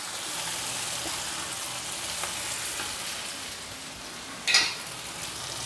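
Chopped onions, tomatoes and chillies sizzling in oil in a non-stick wok while a wooden spatula stirs them, with one short, louder scrape about four and a half seconds in.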